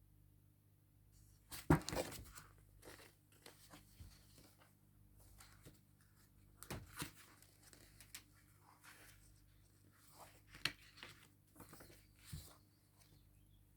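Faint paper rustling with scattered light clicks and taps, a picture book's pages being handled and turned. The loudest rustle comes about two seconds in, with smaller ones spread through the rest.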